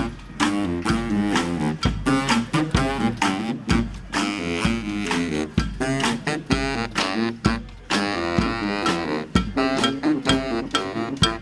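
Brass street band playing a tune over a steady drumbeat.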